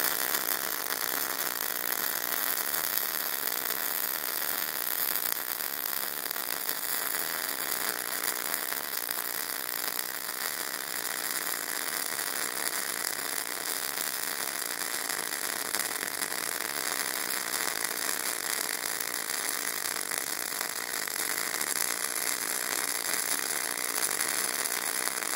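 MIG (gas metal arc) welding arc crackling steadily as a bead is run on steel plate at a deliberately too slow travel speed.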